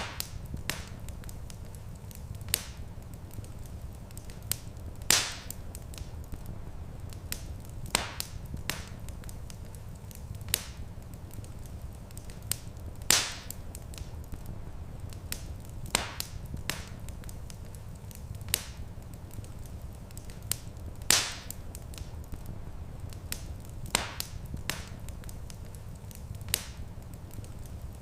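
Wood fire crackling: a steady low rumble under irregular sharp crackles and pops, with a louder pop about every eight seconds.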